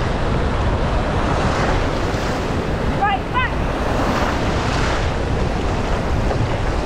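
Wind rushing over the microphone of a camera carried on a mountain bike riding a trail, a steady loud roar mixed with the rumble of the ride. Two brief high squeaks about three seconds in.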